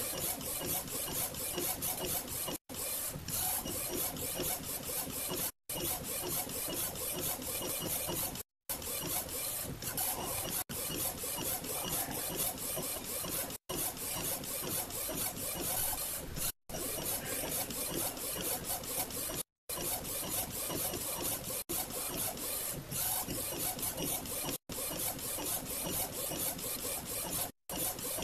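Small A4 eco-solvent inkjet flatbed printer printing, its print-head carriage shuttling back and forth on its rail with a steady rasping mechanical whir. The sound is broken by brief silent gaps about every three seconds.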